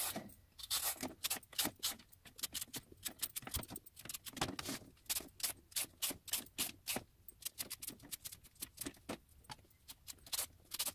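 Vegetable peeler scraping down raw parsnips in a quick, irregular run of short strokes, several a second.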